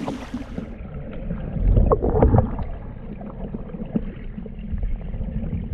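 Rushing river current heard underwater, a muffled low rumble with a few gurgles and knocks around two seconds in.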